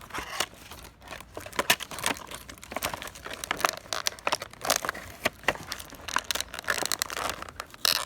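Plastic toy packaging crinkling and crackling in irregular bursts as it is handled and pulled open to free a small toy.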